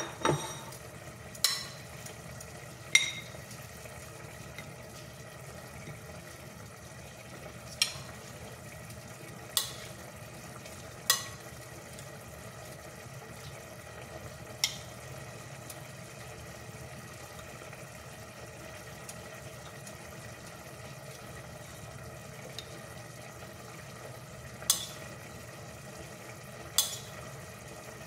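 A serving utensil clinking against a glass bowl and a ceramic plate as salad is scooped from one to the other. There are about nine sharp clinks, spaced irregularly a few seconds apart, over a steady low hum.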